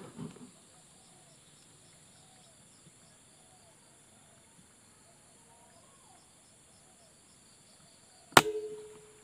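A single air rifle shot about eight seconds in: one sharp crack followed by a brief ringing tone, from a Canon 737 'uklik' air rifle fired at a spotted dove.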